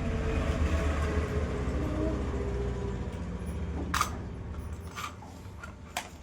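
A toy bulldozer's small motor running with a steady low hum that fades away about four seconds in, followed by a few sharp clicks.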